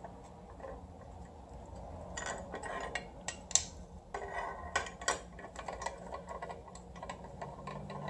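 Hand tools clicking and scraping against a billet aluminium starter bracket and adapter plate on a transmission bellhousing: scattered sharp metal clicks and taps, with a stretch of scraping about two to four seconds in.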